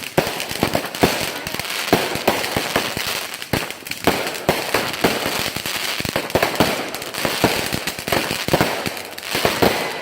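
Consumer fireworks going off: a dense run of rapid, irregular cracks and pops over a steady hiss.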